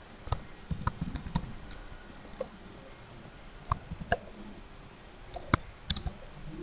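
Computer keyboard typing: a quick run of keystrokes in the first second and a half, then scattered single clicks.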